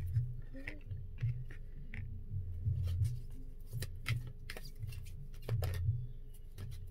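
A deck of oracle tarot cards being shuffled by hand, the cards slapping and clicking against each other in quick irregular clicks over a low rumble.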